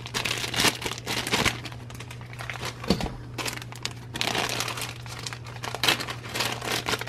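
Thin clear plastic bags crinkling and rustling as hands handle squishy toys packed inside them, in irregular bursts.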